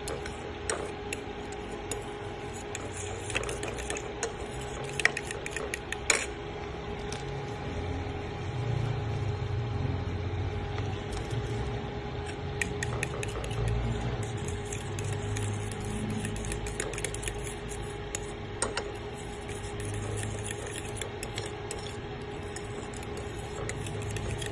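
A spoon stirring coconut milk and curry powder in a bowl, with scattered clinks of the utensil against the bowl, the sharpest around five and six seconds in. A steady hum runs underneath.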